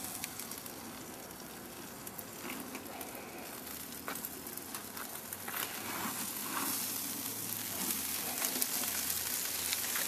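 Brisket sizzling on the hot grate of a charcoal smoker, fat and juices hissing, the sizzle growing louder in the second half as the meat is turned. A few light knocks from handling the meat on the grate.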